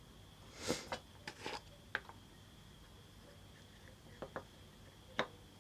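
Handling noises from a screw-top plastic jar of boilies being opened: a cluster of short clicks and rustles as the lid comes off and is set down on the wooden table, then a few more sharp clicks as a boilie is picked out, the last one the loudest.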